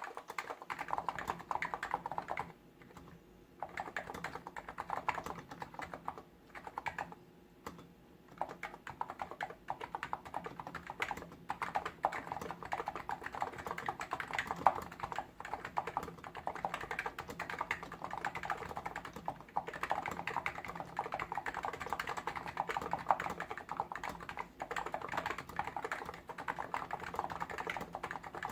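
Typing on a Hansung GTune CHL8 tenkeyless keyboard with electro-capacitive switches: a fast, dense run of keystrokes, with two short pauses in the first several seconds.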